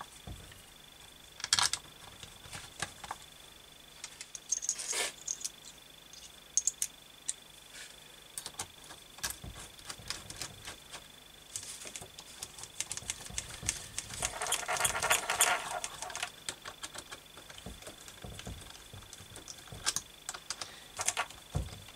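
Small metal clicks and taps of bolts, washers and hand tools as the reed valve block and rubber intake manifold are fitted to a two-stroke engine's cylinder. A denser run of rapid clicking comes about two-thirds of the way through.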